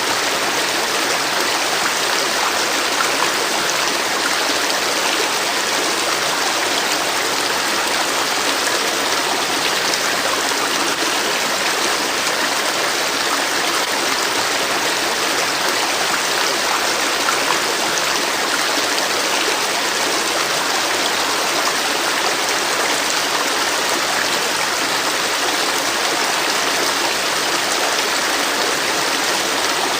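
A river or stream flowing steadily over rocks, an even rushing and trickling of water with no pauses.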